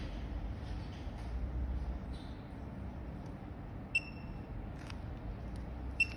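Two short electronic beeps, each a single high tone, about four and six seconds in, as the phone display under test is tapped and switches test screens. A steady low hum runs underneath.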